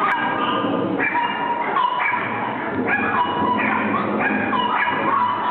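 Small dog yapping and whining over and over, a call about once a second.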